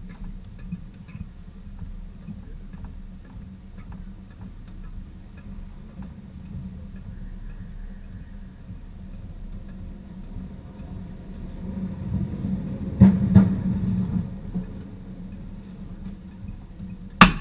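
Race-course ambience of human-powered racing vehicles passing: a steady low rumble with light ticking. A louder pass swells about twelve seconds in, and a single sharp knock comes near the end.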